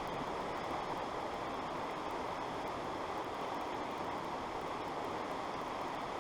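Steady rushing noise of creek water running, even and unbroken.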